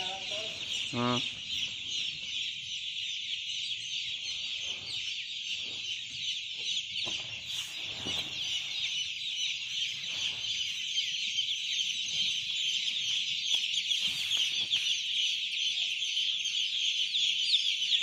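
A dense chorus of hundreds of young chicks peeping all at once: countless short, high, overlapping chirps that each slide downward, running on without a break.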